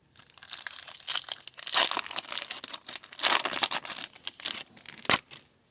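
A trading-card pack's wrapper crinkling and tearing as it is opened, in irregular bursts, with a single sharp click near the end.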